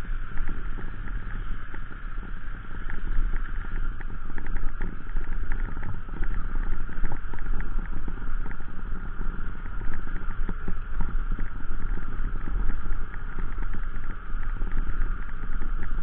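Motorcycle riding over a rough, stony dirt track: steady engine and wind noise with many small clattering rattles from the bike and loose stones.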